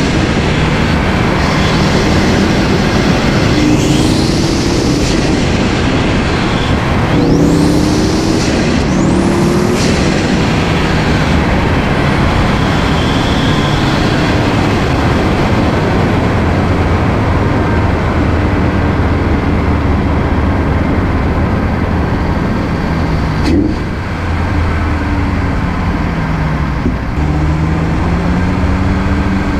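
A 2018 Audi RS3's turbocharged five-cylinder engine, fitted with a 4-inch aftermarket turbo inlet, runs under way while the car is driven. Its note rises and falls several times and climbs again near the end. It sits under a steady rush of wind and road noise at an outside-mounted camera.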